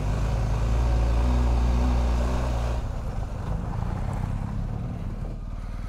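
BMW R1250GS boxer-twin engine running as the bike rides up a dirt trail, a steady low drone that drops in level about three seconds in.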